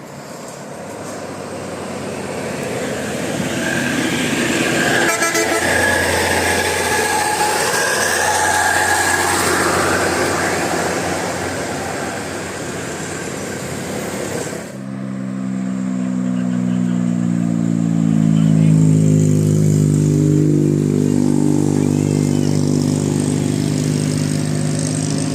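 A large vehicle comes up loud and passes with a few held high horn tones. About 15 seconds in the sound changes suddenly to a bus's basuri musical horn playing a melody of low notes that step up and down.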